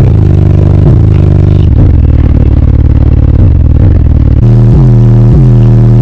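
Very loud bass music from four 15-inch subwoofers in a sixth-order bandpass enclosure, heard from inside the car's cabin, with the car rattling. About four and a half seconds in, the bass line changes to a held low note that drops in pitch again and again.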